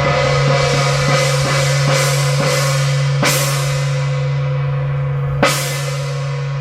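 Background music: a sustained chord with a regular drum beat and cymbal crashes, two louder crashes about three and five and a half seconds in.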